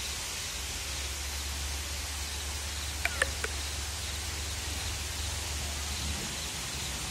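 Fountain jet spraying and splashing, a steady hiss of falling water over a low hum that stops about six seconds in. A brief squeaky sound about three seconds in.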